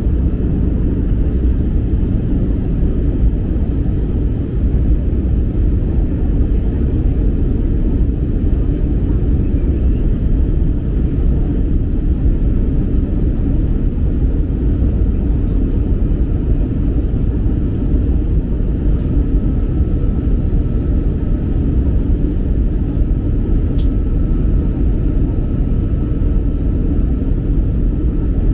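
Airliner cabin noise from a window seat beside the engine: a steady low rumble of jet engines and airflow during the approach descent. A faint thin tone comes in about two-thirds of the way through.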